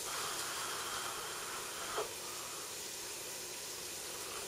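A person slurping thick hot chocolate from a mug: a short sucking hiss near the start, then only a faint steady hiss, with a light tap about two seconds in.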